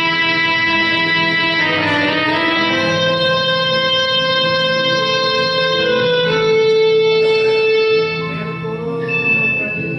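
Karaoke backing track playing an instrumental passage, with long held notes that change pitch a few times.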